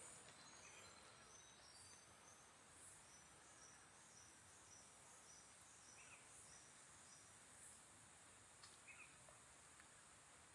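Faint rainforest ambience: a steady high insect drone, with a bird's run of short high notes over the first seven seconds or so and a few scattered chirps.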